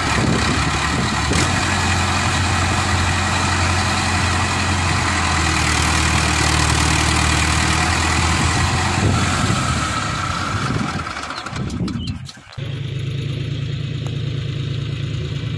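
Mahindra Arjun 555 tractor's diesel engine running loudly under load while the tractor is stuck in deep mud. About twelve seconds in the sound cuts off abruptly to another tractor engine running at a steady, even pitch.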